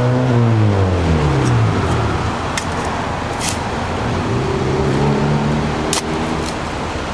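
Road traffic: a passing motor vehicle's engine dropping in pitch over the first two seconds, then another vehicle's engine rising in pitch about four seconds in, over a steady traffic hum. A few sharp clicks sound in between.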